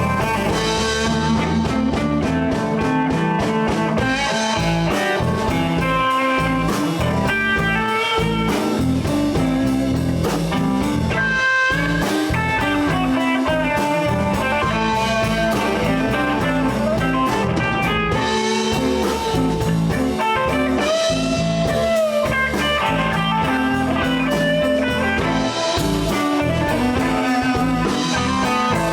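Live blues band playing an instrumental stretch, guitar over bass and drums, with no singing.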